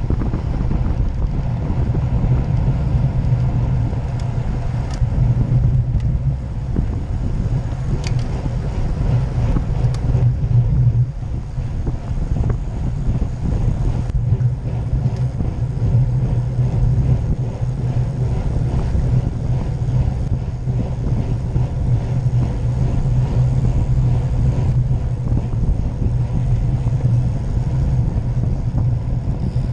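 Steady low rumble of wind on the microphone and tyres on the road from a road bike ridden at racing speed, with a few faint ticks.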